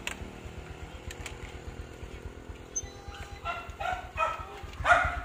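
A motorbike engine idling with a steady low pulse, and a run of short barks from a little past halfway to the end.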